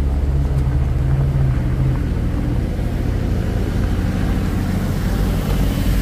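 Heavy truck engine running with a steady low rumble. Its note is a little stronger for the first two seconds.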